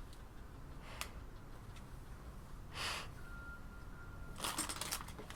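Light clicks of small plastic LEGO pieces being handled, with one short sharp breath about three seconds in.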